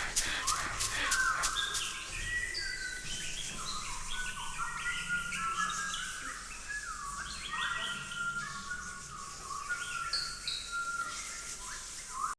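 Many overlapping bird-like chirps and short whistles, each a quick rising or falling glide, going on steadily.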